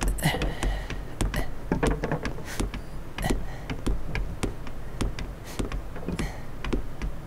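Woodworking workshop clatter: irregular knocks and clicks of boards and hand tools being handled, over a low steady hum.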